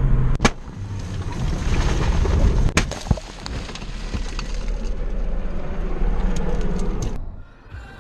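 Vehicle crash recorded on a dashcam: loud road and wind noise broken by sharp impact bangs, one about half a second in and two close together near three seconds in, dropping to quieter road noise near the end.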